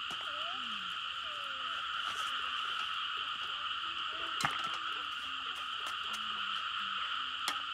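A dense chorus of frogs calling together, a steady unbroken trilling drone. Two sharp clicks cut through it, about halfway through and near the end.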